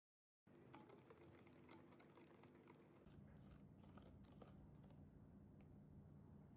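Silicone whisk stirring a runny egg and oil mixture in a glass bowl: faint, quick clicks and scraping of the whisk against the glass, thinning out near the end, over a low steady hum from about halfway.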